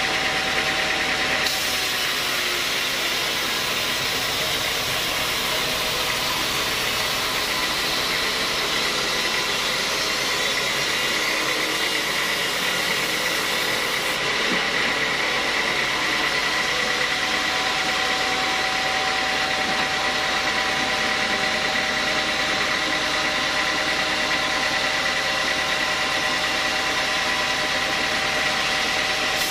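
Home-built band sawmill running, its blade cutting lengthwise through a large log: a steady machine drone with a constant high whine and the hiss of the cut.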